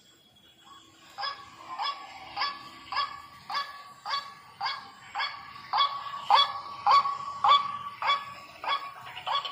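White-breasted waterhen (ruak-ruak) repeating its call about two times a second, some fifteen calls, starting about a second in and growing louder in the second half.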